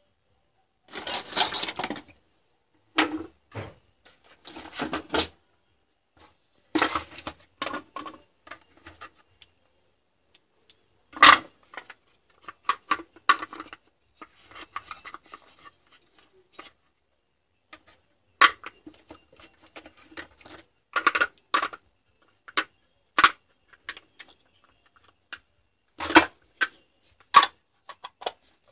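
Plastic cordless-drill battery pack case being handled while cylindrical lithium-ion cells are fitted into it: irregular clicks, knocks and short rattles of hard plastic and metal-cased cells, with one sharper knock about eleven seconds in.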